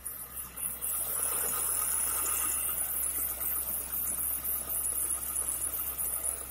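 Renault Logan engine running cold, with a high, chirping whistle over the steady low engine sound; the whistle grows louder about a second in. The whistle comes only with a cold engine and goes away once it is warm, and it persists although both accessory-belt tensioner rollers have already been replaced.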